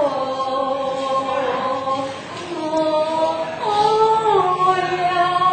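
A group of devotees chanting a devotional chant together, voices holding long, steady notes that step up and down in pitch.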